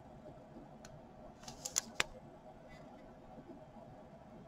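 A red rubber stamp in a clear plastic package being handled and turned over: a few soft crinkles and clicks about one and a half to two seconds in, over quiet room tone.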